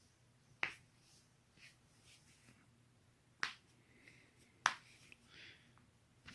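Knee joint cracking: three sharp, separate pops, a few seconds apart, with faint rustling between them.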